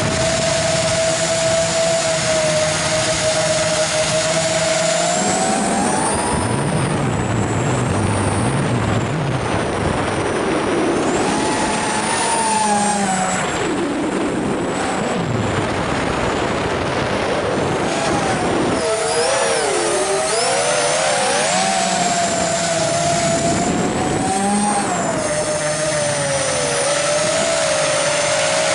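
FPV drone's electric motors and propellers whining, heard from the craft itself over a hiss of rushing air. The whine is steady at first, then about five seconds in it rises and wavers up and down in pitch as the throttle changes. Near the end it settles back to a steady whine.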